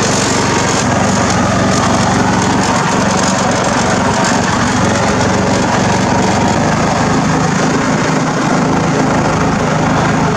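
Craftsman riding lawn mower's engine running steadily while the mower drives along in gear.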